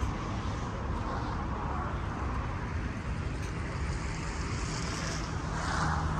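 Steady road traffic noise from passing cars, with one vehicle swelling louder near the end.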